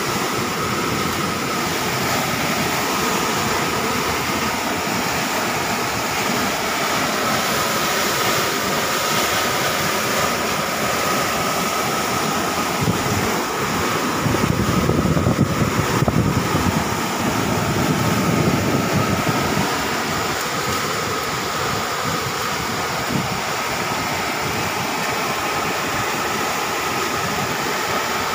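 Muddy river in flood rushing past an embankment: a steady, loud roar of turbulent water, swelling a little around the middle.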